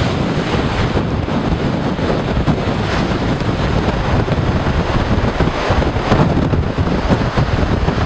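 Blizzard wind buffeting the microphone in a steady, loud rush with a heavy low rumble, and storm waves surging against the ice-crusted lakeshore underneath it.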